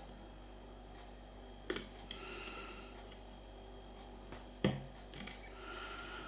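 Lock pick and tension tool working in the keyway of a Mul-T-Lock MT5 cylinder: light metallic scraping with three sharp clicks, the loudest a little past halfway. The pins give no feedback and none sets.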